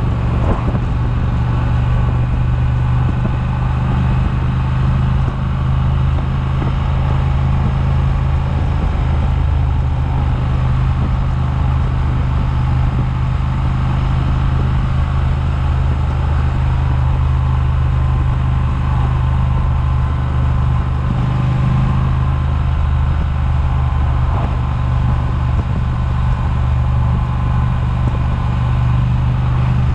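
Triumph motorcycle engine running steadily at cruising speed, with wind noise on the microphone.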